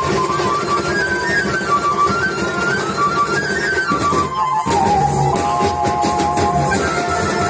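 Traditional folk music: a high melody line with moving notes over steady drumming. About four and a half seconds in there is a short break, after which the melody moves to lower held notes.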